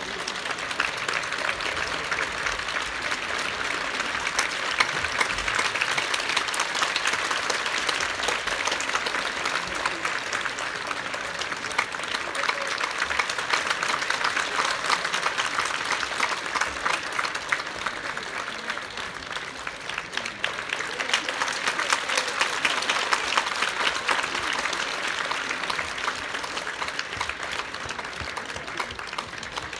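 A theatre audience applauding steadily, many hands clapping together in a large hall, dipping briefly about two-thirds through and swelling again.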